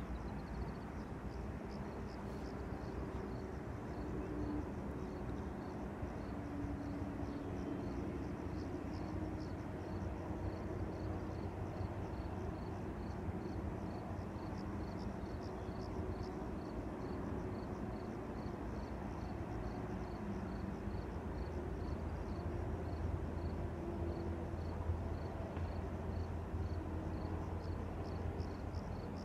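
Open-air lakeside ambience: a low steady rumble with faint high-pitched chirping that repeats several times a second throughout.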